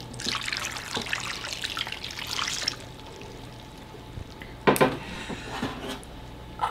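Orange juice pouring from a measuring cup over chopped vegetables in a crock pot, a trickling splash for about three seconds that then stops. A sharp knock about 4.7 seconds in as the empty cup is set down on the counter.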